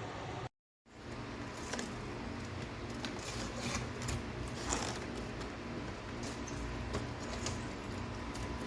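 BLACK+DECKER BPACT10WT portable air conditioner running with a steady hum and hiss, with scattered light clicks and rustles. The sound cuts out completely for a moment about half a second in.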